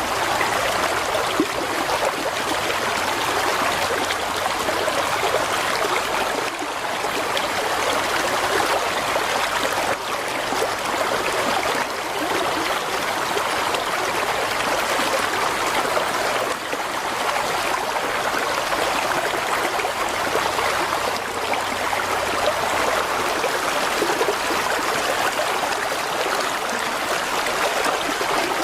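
Mountain stream of flowing water, a steady rushing and trickling without a break.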